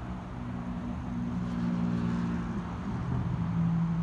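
An engine running with a steady low hum, its pitch shifting around the middle and settling on a lower tone near the end.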